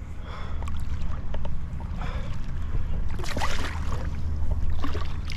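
Water sloshing and splashing as a large tarpon is lowered by hand into shallow pond water, with the biggest splash about three seconds in. A steady low rumble of wind on the microphone runs underneath.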